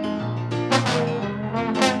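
Live jazz-style band music led by a trombone, playing held notes over a bass line, with two bright accents about a second apart.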